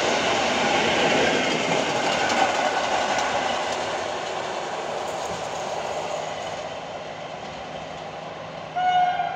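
Electric multiple unit passenger train passing and running off into the distance, its rail and wheel noise fading steadily. Near the end a short steady tone sounds for about half a second.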